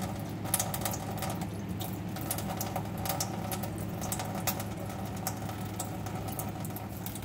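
Light water splashing and pattering as a young green-cheeked conure bathes, many short scattered splashes over a steady low hum.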